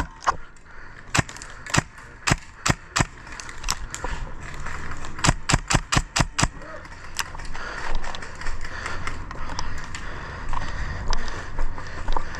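Airsoft guns firing sharp single shots at irregular intervals, with a quick run of about five shots near the middle, over rustling movement.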